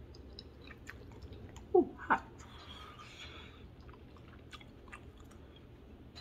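A person chewing a mouthful of pasta and chickpeas, with soft wet mouth clicks throughout and two brief louder sounds from the mouth about two seconds in.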